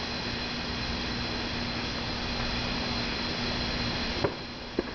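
Steady hiss with a faint low hum. About four seconds in there is a sharp click and the hiss drops, and a second click comes near the end.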